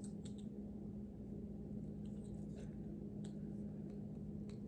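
Faint clicks and taps of small plastic minifigure parts being handled and fitted together, a few scattered ticks over a steady low electrical hum.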